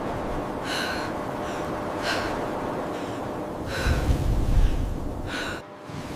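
Heavy, gasping breaths, one about every one and a half seconds, four in all, over a steady low rumble and hiss of blizzard wind.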